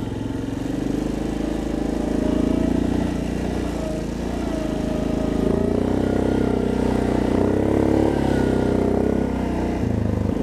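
ATV engine running steadily under way, its pitch rising and easing a little with the throttle and edging up after about six seconds.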